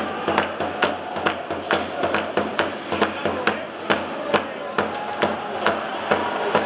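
Spectators in a small ice hockey arena banging out a steady rhythm, sharp knocks about two and a half times a second that carry on through the play.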